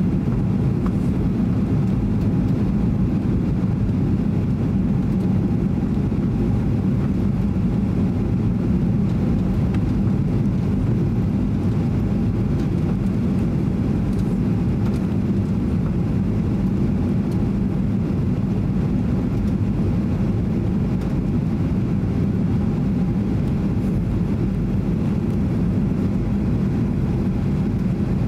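Steady cabin noise inside a Boeing 737-800 on approach, heard from a window seat over the wing: a low rush of airflow and the drone of its CFM56-7B engines, unchanging throughout.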